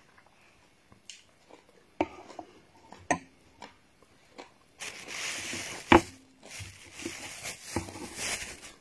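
A metal spoon clicks against a bowl of soaked garri a few times, two of the clicks ringing briefly. From about halfway there is loud rustling right at the microphone, broken by one sharp knock just after the middle.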